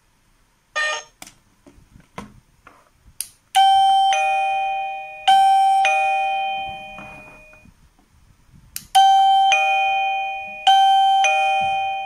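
Coolqiya wireless doorbell receiver playing its ringtone, a descending two-note ding-dong twice over, and the whole tune playing twice with each note ringing and fading. It is the tone chosen on the receiver, sounding once the push-button transmitter is paired. A short beep and a few light button clicks come before it.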